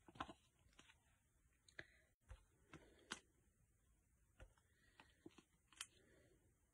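Near silence with scattered faint clicks and light rustles of paper being handled on a cutting mat, as foam adhesive dimensionals are picked up for a handmade card.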